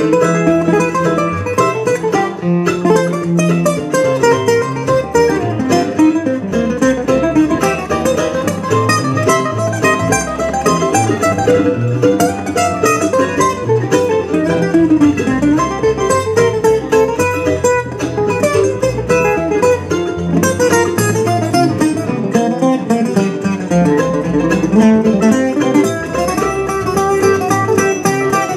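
Acoustic string band playing an instrumental break with no singing: acoustic guitars picking the melody and rhythm over mandolin and upright bass, steady throughout.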